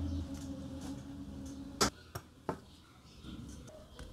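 Leaf shutter of a 1950s BeautyFlex twin-lens reflex clicking as it is worked by hand: one sharp click a little under two seconds in, then two lighter clicks in quick succession. The shutter is firing again after restoration.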